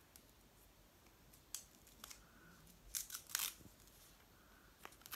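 Faint scratchy rustles and short clicks as a foam face protector is pulled off a resin ball-jointed doll's head, with a cluster of them about three seconds in.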